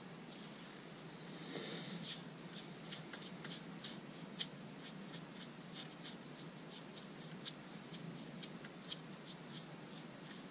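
Foam brush rubbing shellac onto a wood-and-resin vase turning slowly on the lathe: faint scratchy brushing with light ticks about three times a second.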